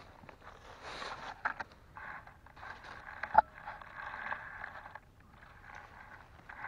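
Dry leaves and pine needles crunching and rustling in short spells as someone steps and reaches through the leaf litter. A single sharp click about three and a half seconds in is the loudest sound.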